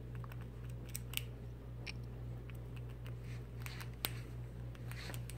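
Gray squirrel gnawing a nut: irregular sharp clicks and cracks of teeth on shell, several a second at times, over a steady low hum.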